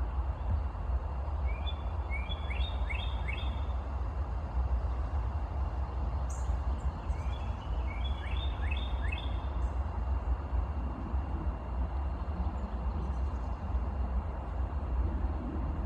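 A small songbird sings a short phrase of quick, rising chirped notes twice, about six seconds apart, over a steady low rumble.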